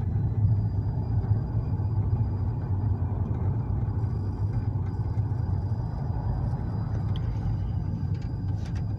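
Steady low rumble of a car being driven, engine and tyre noise heard from inside the cabin, with a faint thin high whine over it.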